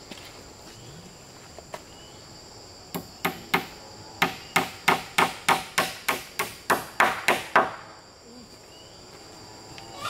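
Hammer striking a nail into a log wall, about fifteen blows at roughly three a second, starting about three seconds in and stopping near the eighth second. A steady high insect drone runs underneath.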